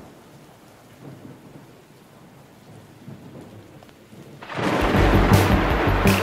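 Opening of a soundtrack built on storm effects: a faint rain-like hiss, then about four and a half seconds in a sudden loud thunder rumble with deep bass as the music comes in.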